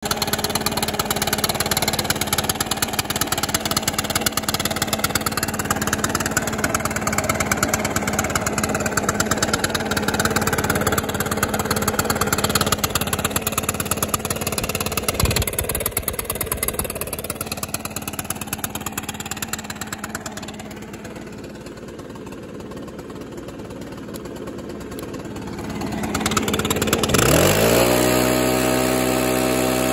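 Stihl BR600 Magnum backpack blower's 4-MIX engine running, settling quieter about twenty seconds in, then revved up near the end with a rising whine. It idles smoothly after a carburetor adjustment and throttle-cable repair.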